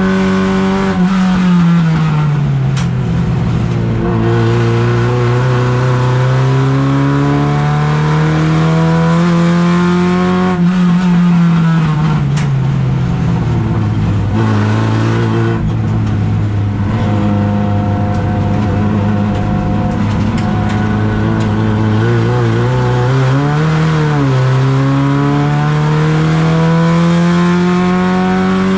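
Race car engine heard from inside its cabin under hard driving. The revs fall and climb several times as it slows for bends and accelerates out of them, with a brief blip of revs shortly before the last climb.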